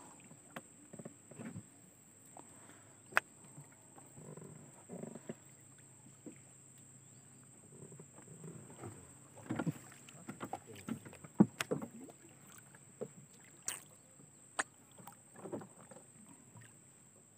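Quiet handling noises aboard a small fishing boat on a river: scattered light knocks and clicks, a few sharper ones in the middle, over a faint steady high-pitched tone.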